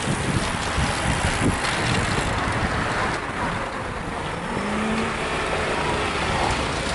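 A car drives past about four to six seconds in, over steady wind rumble on the microphone.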